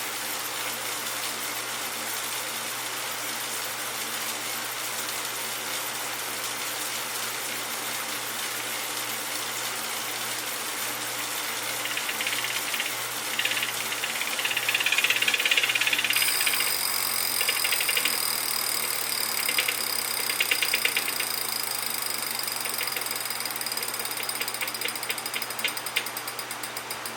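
Wahoo KICKR (2018) direct-drive smart bike trainer running with an abnormal noise. A steady hum and whir is joined about halfway through by a louder buzzing rattle and a high-pitched whine. Near the end a rapid ticking slows down as it spins down.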